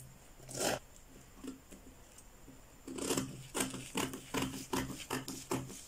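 Scissors cutting through brown pattern paper: a single snip under a second in, then a steady run of snips, about three a second, from about three seconds in.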